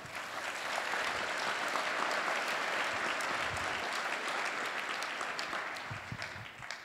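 Audience applauding: many hands clapping that build up quickly, hold steady, then die away near the end.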